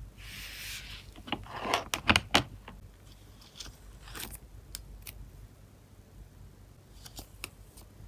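Photocards and plastic packaging being handled: a short crinkly rustle, then a quick run of sharp clicks and taps, with a few lighter taps later.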